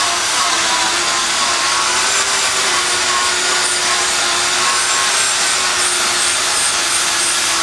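Power tool grinding continuously, a steady whining hum that wavers slightly in pitch.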